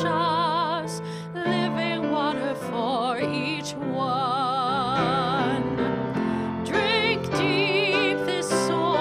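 A woman singing solo, with wide vibrato on her held notes, accompanied by a grand piano playing chords.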